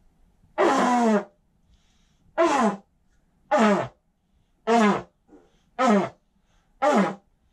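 A long horn blown hard in six short blasts, about one a second. Each blast is a loud, buzzy blare that slides down in pitch as it ends, and the first one is the longest.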